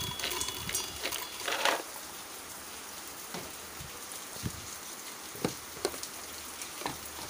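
Roasted peanuts clattering and settling in a steel mixer jar over the first two seconds, then a steady faint hiss with a few scattered light clicks.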